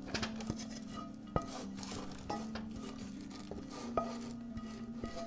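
Wooden spatula scraping a dry, crumbly meat-and-breadcrumb mixture out of a cast iron skillet into a metal loaf pan, with several sharp knocks of spatula and pan and the patter of falling crumbs. Soft background music runs underneath.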